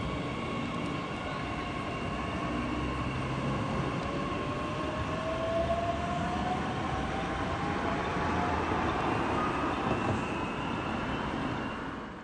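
Bombardier Talent 2 (class 1442) electric multiple unit pulling away and accelerating, a steady running rumble under several held high tones, with a whine that rises slowly in pitch from about four seconds in.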